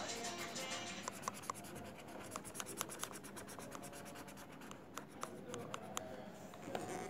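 Felt-tip marker scratching and rubbing on paper while colouring in, in quick back-and-forth strokes with many small ticks.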